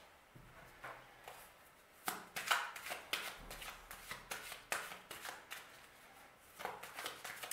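A tarot deck being shuffled by hand: a fast, irregular run of card flicks and rustles that starts about two seconds in.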